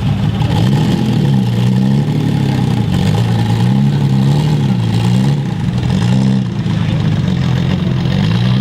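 Car engine running loud and low, its pitch rising and falling several times as it is revved and let back down.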